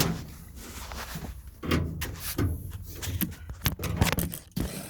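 Irregular knocks, clunks and clicks from a tool box being handled, with a sharp knock at the very start.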